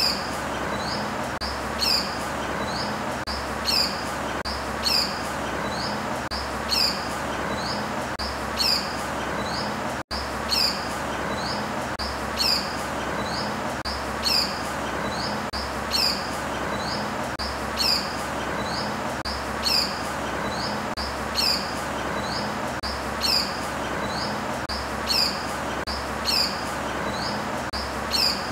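A bird calling over and over with short, high, falling notes at an even pace, about one a second, over a steady background hiss.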